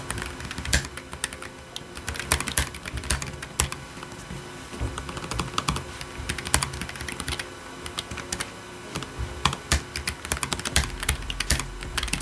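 Fast, continuous typing on a Lemokey P1 Pro mechanical keyboard fitted with pre-lubed Keychron Super Red linear switches: a dense, steady run of key clacks.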